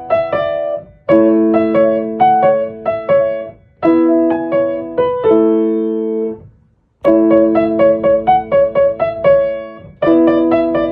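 Background music on piano: a repeating melody of struck notes over held chords, in phrases of about three seconds, with a short break about six and a half seconds in.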